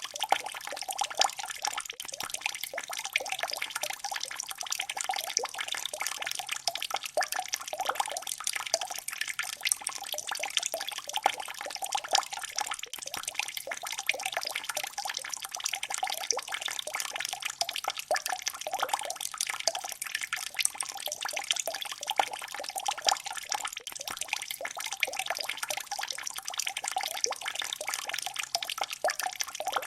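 Water drops falling continuously, many small drips and splashes in quick, irregular succession.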